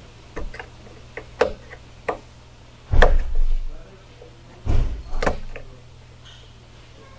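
Plastic clicks and knocks as push-in retainer clips are pried out of a Genesis GV80's plastic cowl panel with a small tool: several sharp clicks in the first two seconds, then two heavier thuds about three and five seconds in, over a steady low hum.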